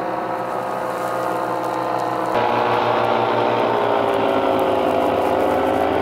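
Motorized paraglider's propeller engine droning overhead, a steady buzz that gets suddenly louder a little over two seconds in, its pitch then sinking slowly as it passes.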